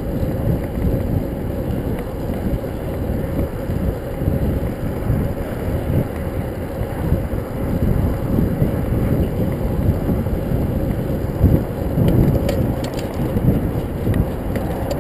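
Wind buffeting the microphone of a camera riding along on a road bike: a loud, uneven low rumble. A few faint clicks come about twelve seconds in.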